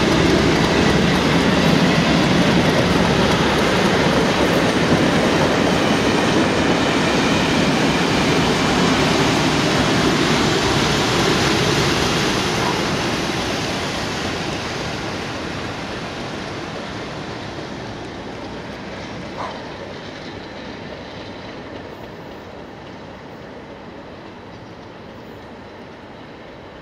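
Test train top-and-tailed by two Class 37 diesel locomotives (English Electric V12 engines) passing close by: wheel-on-rail noise and diesel engine sound, loud at first, then fading steadily into the distance from about halfway. A short sharp sound comes about two-thirds of the way through.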